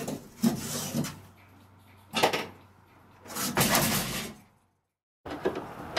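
Large sheet-metal wall panel being wrenched loose and lifted out of a van body, scraping and banging against the metal in three bursts, the longest and loudest about three and a half seconds in. The sound then cuts out for about a second.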